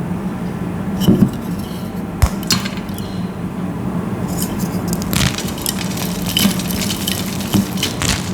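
Crumbly material being crushed, giving a continuous irregular crackle with scattered sharper clicks; it does not yet give the squeaky sound.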